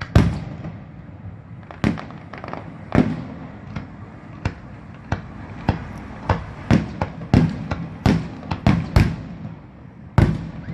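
Salute fireworks bursting: a string of about sixteen sharp bangs with short rolling tails, roughly a second apart at first and coming faster and closer together in the second half.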